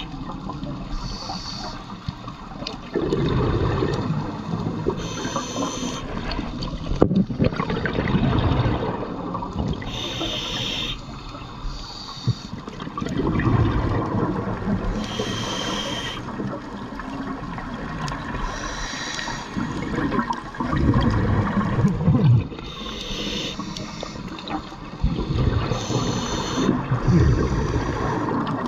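Scuba diver breathing through a regulator underwater, about five slow breaths: a short hiss on each inhale and a longer rush of exhaust bubbles on each exhale.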